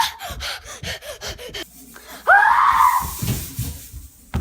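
A person screaming in fright: a short cry at the start, a rapid string of short sharp sounds, then a longer yell that rises and falls about two seconds in.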